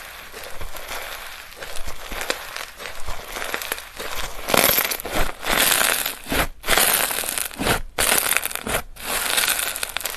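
Slime being squeezed and pressed by hand: a dense run of small crackles and squelches, growing louder about halfway through, with a few brief pauses between presses.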